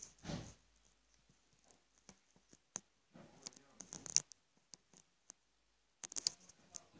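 Faint scattered rustles, scratches and clicks on cardboard and paper, with brief clusters about three seconds in and again near the end.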